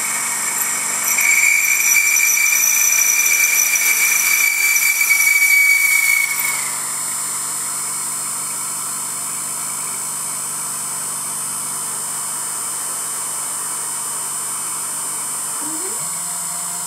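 Emco F1 CNC milling machine drilling into a cast iron backplate: a steady high whine of the cut from about a second in, which stops a little past the halfway mark, leaving the spindle running on. Near the end come a few short rising whines from the machine.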